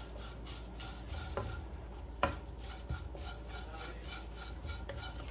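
Poha (flattened rice) being stirred and roasted in ghee in a kadhai: steady, repeated scraping through the dry flakes, with a few sharper knocks of the utensil against the pan.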